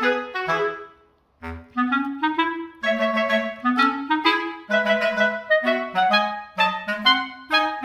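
Background music: a woodwind melody of short, separate notes. It breaks off for a moment just after a second in, then starts again.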